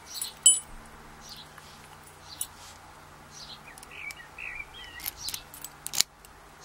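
Scattered small metallic clicks and clinks of tools and padlock parts being handled, with a sharp ringing clink about half a second in and another sharp click near the end. Faint bird chirps come about once a second behind.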